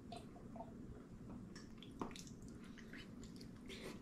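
Quiet sounds of a meal at a table: a small drinking glass set down with a sharp click about halfway through, and light clinks of chopsticks against dishes.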